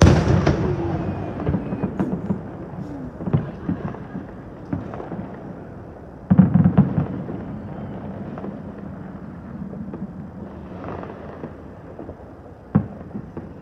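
Fireworks going off: a loud bang at the start that rumbles away, with scattered crackles after it. A cluster of bangs comes about six seconds in, and a single sharp crack near the end.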